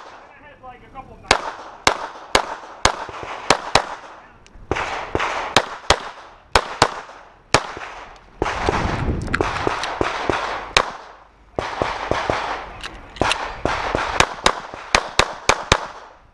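Glock 19 9mm pistol firing handloaded rounds in fast strings of shots, several a second, broken by short pauses. A steady rushing noise fills several stretches between and under the strings.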